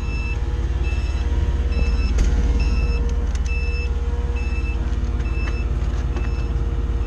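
Cat forklift's engine running steadily while its warning alarm beeps, one short high beep a little more than once a second, with a few sharp clicks.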